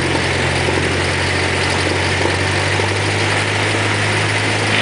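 Single-engine Cessna's piston engine and propeller running steadily at low power during the post-landing taxi, a constant low drone heard from inside the cabin.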